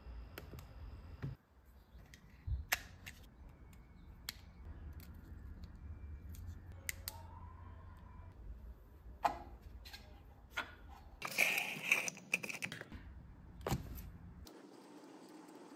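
Faint scattered clicks and handling noises of small electronics and a plastic remote case being picked up and pressed, with a louder rustling scrape about three quarters of the way through.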